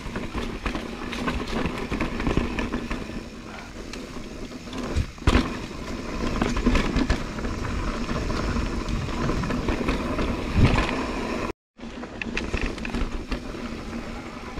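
Mountain bike ridden over dirt, roots and rock on a singletrack trail: steady tyre and trail rumble with the bike rattling, and sharp knocks about five seconds in and again near ten seconds in. The sound cuts out for a moment near the end.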